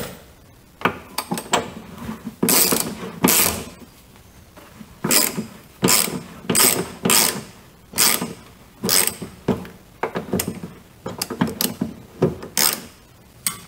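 Ratchet wrench with an 18 mm socket turning out the pivot bolt of the rear axle beam's front bushing on a VW Golf Mk4, clicking in a string of short, irregular bursts as the bolt is loosened stroke by stroke.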